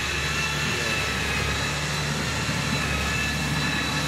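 Engine of a tracked rice-transport machine running steadily as it drives across the stubble loaded with rice sacks, a constant engine drone with a steady high whine over it.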